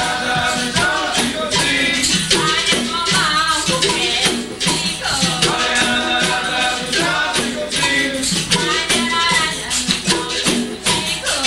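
Capoeira roda music: the rattle of a caxixi shaker and a pandeiro's jingles keep a steady beat under voices singing.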